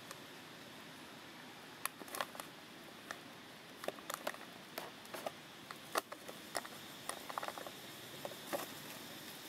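Irregular sharp crackles and crinkles of a crumpled plastic bottle and dry leaves as a long-tailed macaque handles the bottle and steps through the leaf litter, over a steady hiss. The crackles start about two seconds in and come in scattered clusters until near the end.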